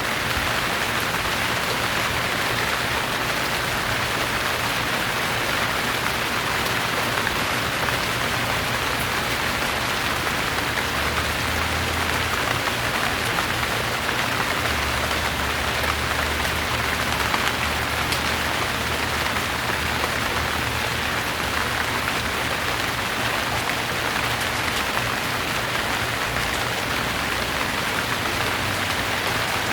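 Steady rain falling on surfaces, a dense even patter of drops at a constant level, with a faint low hum beneath it.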